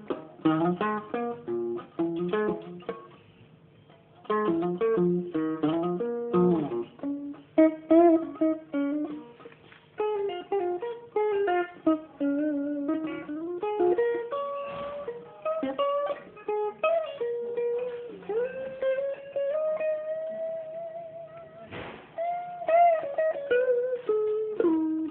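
Music on a plucked string instrument: picked single notes and quick runs, a brief pause about three seconds in, and later a few long held notes that bend in pitch.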